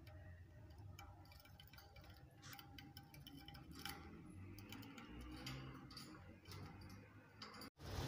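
Faint, irregular ticks and clicks from budgerigars moving about on a wooden perch in a wire cage.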